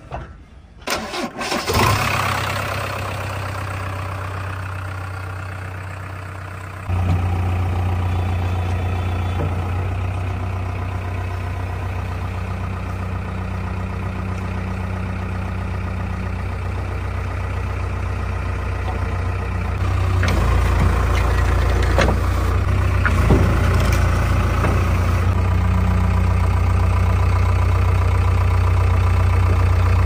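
JCB 3DX backhoe loader's four-cylinder diesel engine starting about two seconds in, then running steadily at idle. About seven seconds in it steps up louder and deeper, and it grows louder again around twenty seconds in.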